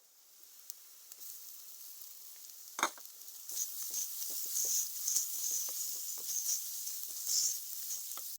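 Food sizzling in a hot pan while being stirred, with short scrapes and taps of the spoon against the pan. The sizzle swells louder about three and a half seconds in, and there is one sharp knock just before that.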